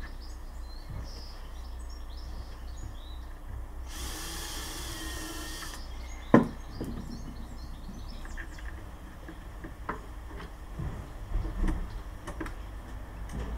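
Cordless drill-driver running for about two seconds, driving a screw in flush, followed by one sharp knock and then scattered lighter clicks and knocks of the hive panels and fixings being handled.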